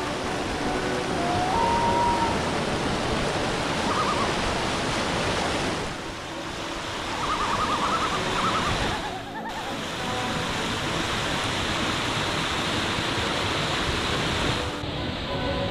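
Mountain creek water rushing and splashing over boulders and down granite cascades, a steady dense hiss of white water. The sound shifts abruptly a few times as the stretch of water changes.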